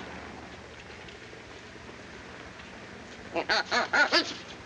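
Old film-soundtrack hiss. Then, about three and a half seconds in, a man's quick run of four short, pitched comic vocal noises within about a second.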